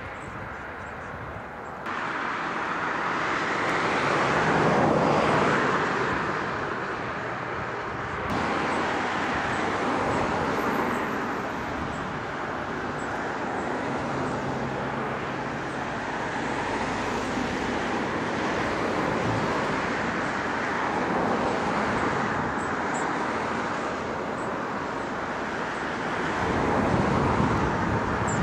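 Lockheed C-5M Super Galaxy's four turbofan engines on landing approach: a steady rushing jet roar, loudest about five seconds in and again near the end.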